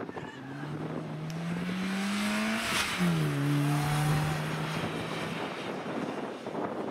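Renault Clio rally car accelerating toward and past close by, its engine note climbing, then dropping in pitch about three seconds in as it goes by at its loudest. It then runs on at a steady note and fades as it pulls away.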